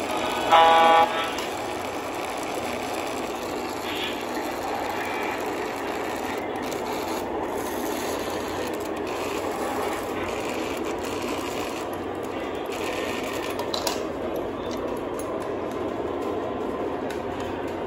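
O gauge model diesel locomotive sounding one short horn toot about half a second in, then running along three-rail track with a steady rolling rumble and rattle.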